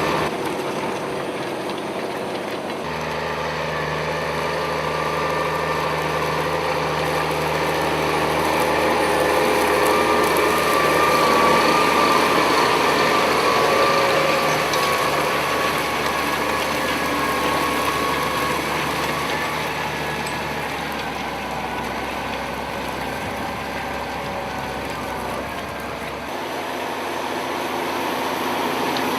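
Farm machinery running: a steady engine hum under the clatter and whir of working mechanisms. The low engine note shifts about three seconds in and again near the end.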